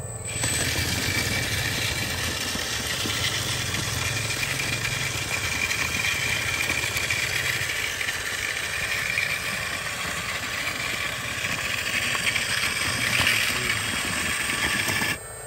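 A scale RC Hitachi Zaxis 360H excavator running and crawling along on its tracks: a steady motor whine with a low engine-like hum underneath, cutting off suddenly near the end.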